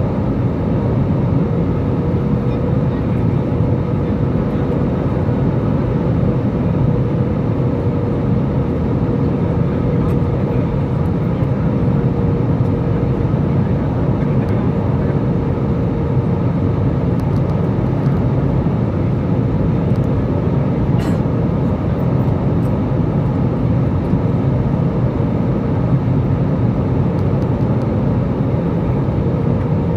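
Steady cabin noise of an airliner in flight: engine and airflow noise, heaviest in the low end, with a faint constant hum over it.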